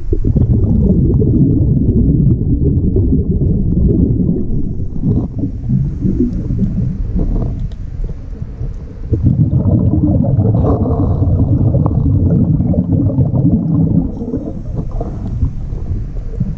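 A scuba diver's exhaled air bubbles rumbling underwater, muffled through the GoPro's waterproof housing. There are two long stretches of rumbling, with a short lull about eight seconds in, and a faint high hiss near the end.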